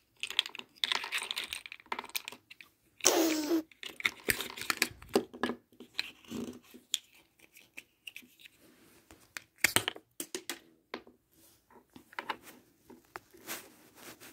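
Small plastic toy food pieces clicking and clattering against a table as they are handled and shuffled, in irregular taps throughout, with a louder burst of rustling about three seconds in.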